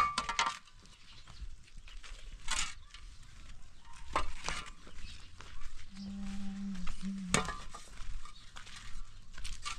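A metal shovel scraping and knocking on stony dirt ground in separate strokes, the loudest a sharp knock right at the start. About six seconds in, a brief low moo from livestock.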